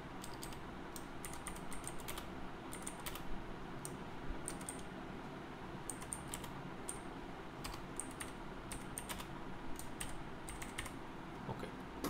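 Computer keyboard typing: an uneven run of key clicks, several a second, as a short phrase is typed out.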